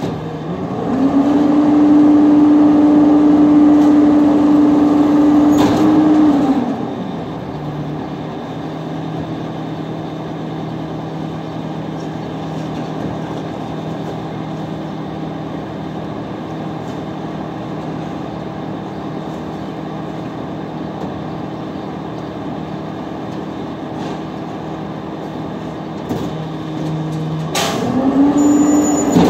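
Rear-loading garbage truck's diesel engine revs up about a second in and holds high for roughly five seconds, then drops back to a steady idle. It revs up again near the end. The raised revs drive the hydraulic packer.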